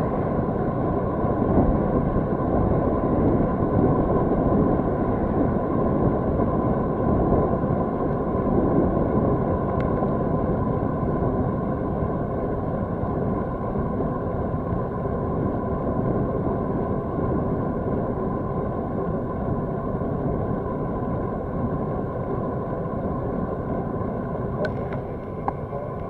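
Wind rushing over a bicycle-mounted camera's microphone at road-cycling speed, a steady low roar that eases slightly near the end as the bike slows.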